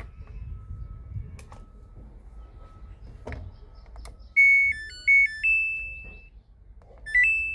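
Samsung Wobble washing machine's control panel playing its electronic power-on tune, a short melody of beeps, about four seconds in. A brief rising beep follows near the end. A few clicks come earlier. The machine now powers up after the broken board tracks were bridged with wire.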